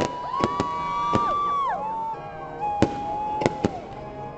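Fireworks exploding overhead: about seven sharp bangs at uneven intervals, two or three in quick succession, over long held tones that slide down in pitch as they end.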